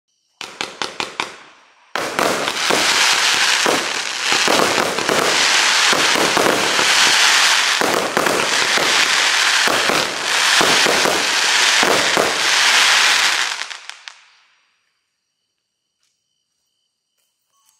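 Zena Crackling Willow firework cake firing. A few sharp reports come first, then from about two seconds in a dense, continuous crackle of the willow stars over repeated shot thumps. It dies away about fourteen seconds in.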